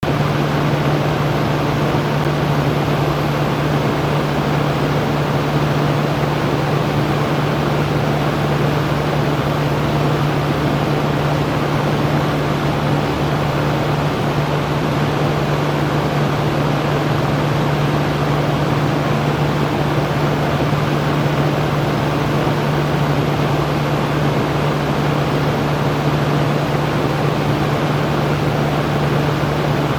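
Electric fan running steadily: an even rush of air with a constant low hum.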